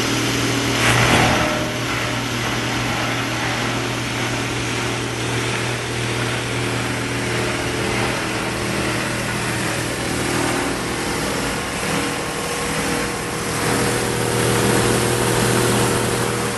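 Plastic film crusher (granulator) running, a steady motor hum under dense machine noise, with a brief louder surge about a second in.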